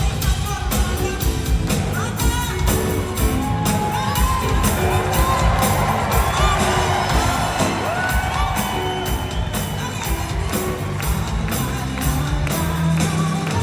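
Live band music with a steady beat, and an audience cheering and whooping over it, loudest in the middle.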